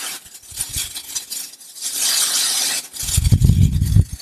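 Ethanol pouring from a plastic jug through a plastic funnel into a plastic container, a splashing hiss, with a louder low rumbling stretch about three seconds in.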